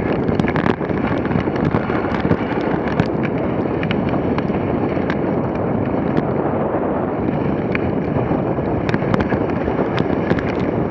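Dog sled running fast over packed snow: a steady hiss and rumble of the runners on the snow mixed with wind on the microphone, with scattered sharp clicks and knocks.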